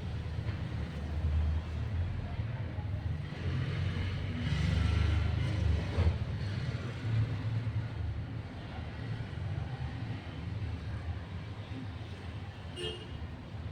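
Low, steady background rumble with a short breathy hiss about four to six seconds in and a sharp click about six seconds in.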